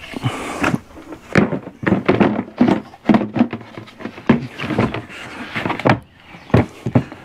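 Hard plastic feeder parts and a bucket being handled: a run of irregular knocks and thuds with brief rubbing in between, as the cut pieces are cleaned of plastic crumbs.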